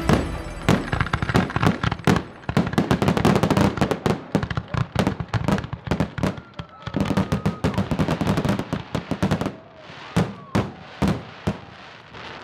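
Aerial fireworks bursting overhead in a rapid, crackling run of bangs, thinning to a few separate bangs near the end.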